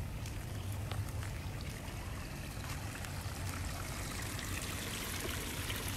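Steady trickle of running water over a low rumble, with a few faint clicks.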